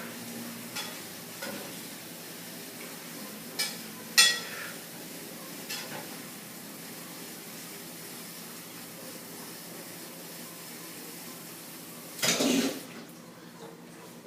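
Curry chicken sizzling in a pot, a steady sizzle with a few metal clinks of a spoon against the pot, the loudest one ringing briefly about four seconds in. Near the end comes a short louder burst of noise, after which the sizzle sounds thinner.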